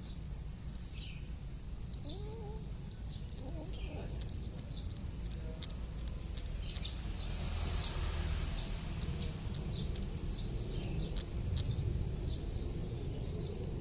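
A kitten chewing raw suckermouth catfish, with many short wet clicks, over a steady low hum and repeated short chirps in the background.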